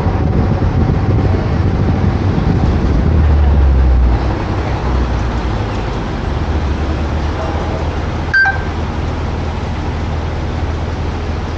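A car driving through city traffic: a steady low road and engine rumble that is louder for a moment about three seconds in, with a single sharp click and a short high beep about eight seconds in.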